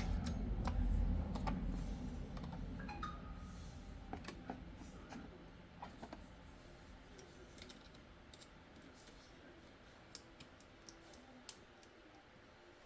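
Scattered light clicks and taps of small laptop parts and tools being handled, irregularly spaced. A low rumble of handling noise fades away over the first few seconds.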